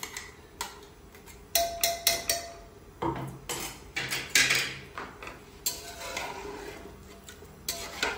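Metal spoon clinking, tapping and scraping against steel kitchen vessels as chilli paste is scraped from a steel mixer-grinder jar into a pressure cooker and the cooker is stirred. It is a string of short clinks and knocks in a few clusters, and some of them ring briefly.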